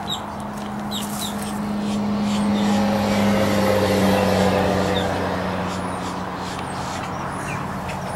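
A motor's steady hum swells to its loudest about four seconds in and then fades, as a vehicle passes. Short high bird chirps come and go over it.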